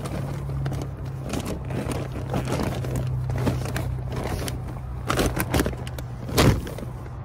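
Plastic shopping bag rustling and crinkling as a pair of roller skates is pushed down into it, with a few louder knocks and rustles in the last couple of seconds.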